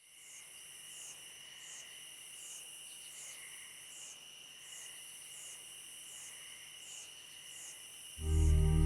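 Insects chirping steadily: a continuous high trill with a short chirp repeating about one and a half times a second. Loud music comes in abruptly near the end.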